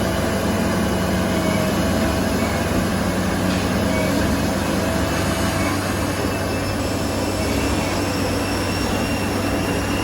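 Steady drone of aircraft ground machinery around a parked Boeing 747: a low hum with a few faint high whines over it, unchanging throughout.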